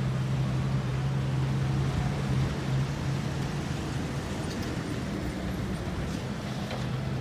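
Ten-wheeler truck's diesel engine running steadily with a low, even hum.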